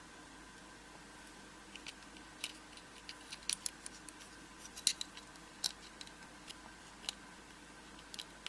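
Small sharp metallic clicks and taps, scattered and irregular, from tools working at an American A1100 padlock to get its retaining clip off; the loudest few come about halfway through.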